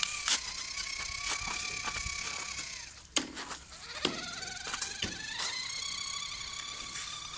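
Electric motor and gearbox of a WPL RC logging truck whining at a steady pitch, winding down and cutting out just under three seconds in, then whining back up in pitch as it gets going again. Scattered small clicks run through it.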